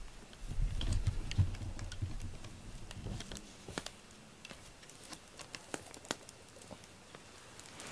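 A cat clawing a corrugated cardboard scratching board. About three seconds of scratching strokes and dull thuds are followed by scattered light scratches and clicks.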